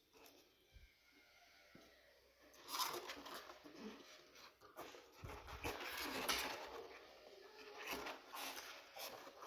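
Rustling of packaging with small clicks and knocks as parts are handled, starting about three seconds in and coming in uneven bursts.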